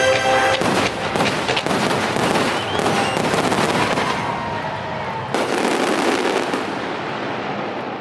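Fireworks finale: a dense barrage of launches and crackling bursts, thinning out toward the end. A held orchestral chord breaks off about half a second in, as the barrage takes over.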